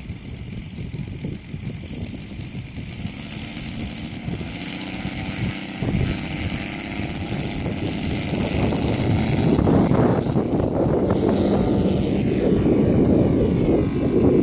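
A radio-controlled scale model Westland Wyvern's engine and propeller run at a high, steady whine during the take-off roll. The whine fades in the last few seconds, while the rumble of wind on the microphone grows louder.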